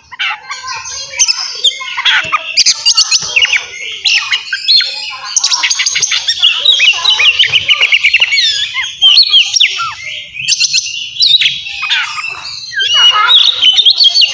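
Oriental magpie-robin (kacer) singing a loud, varied song, with whistled rising and falling notes and fast chattering rattles and brief pauses between phrases.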